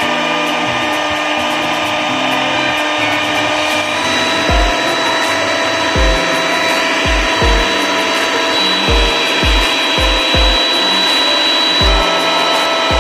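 Philips electric mixer running steadily, its beaters whipping eggs and sugar into a sponge cake batter: a steady motor whine whose pitch shifts slightly about four seconds in, with irregular low thumps.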